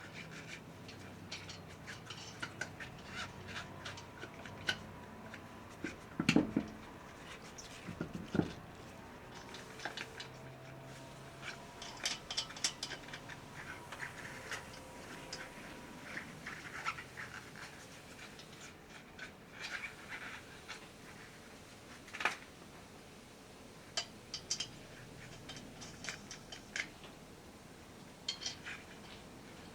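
Scattered metallic clinks, clicks and knocks of hand tools and wheel parts being handled during a tyre change, with two heavier thumps about six and eight seconds in.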